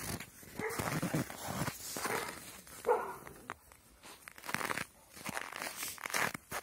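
Crunching of deep snow as dogs plough and roll through it and a person walks behind, in irregular bursts. A dog gives a short bark about three seconds in.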